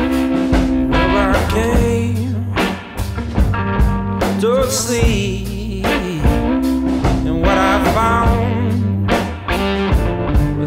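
Background music: a blues-rock song with guitar and a steady drum beat.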